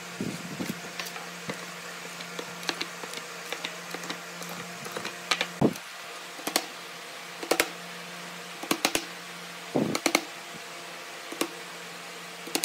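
Scattered light clicks and taps of a flexible steel ruler, pencil and pine boards being handled on a wooden workbench, with a few louder knocks about halfway through and again near the end, over a steady low hum.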